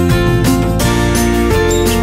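Background music with a steady beat, held bass notes and sustained instrument notes.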